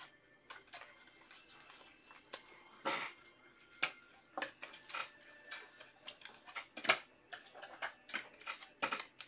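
Scattered light clicks and rustles of hands handling a trading card and a clear plastic card holder, the sharpest click about seven seconds in.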